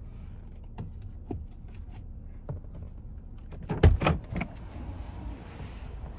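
Handling noise: scattered clicks and knocks over a steady low rumble, with a cluster of louder knocks about four seconds in.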